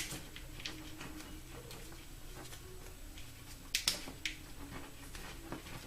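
Faint handling of vinyl electrical tape being pulled off the roll and wrapped around a wiring harness loom, with a few short crackles and clicks, the clearest ones about four seconds in. A low steady hum lies underneath.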